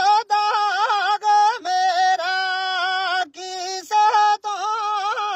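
Solo voice singing a Gojri baith folk song, unaccompanied, holding long ornamented notes with brief breaks between phrases.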